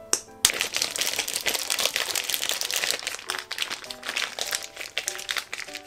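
Plastic zipper storage bag crinkling and squishing as a raw chicken breast is kneaded by hand in a thick yogurt-and-ketchup tandoori marinade, a continuous run of crackles from about half a second in until just before the end. A short click comes right at the start.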